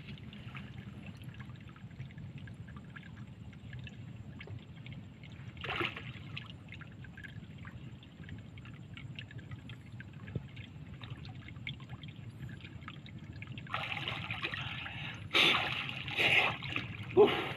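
Calm lake water lapping and trickling against a wooden boat's hull, with small drips and crackles. Near the end a man surfaces from a breath-hold dive, splashing and breathing hard in three loud bursts.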